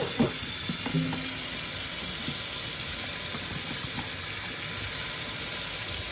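Kitchen faucet running steadily into a stainless steel sink, its stream splashing into the sink beside and over raw oxtails, filling it so the meat can soak.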